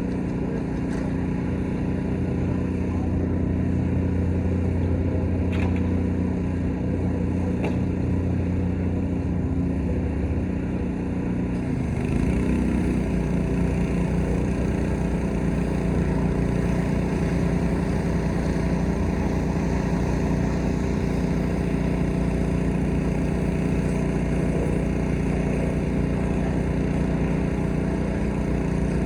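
Gas pressure washer's small engine running steadily. About twelve seconds in, its note dips briefly, then settles on a new steady pitch, a little louder.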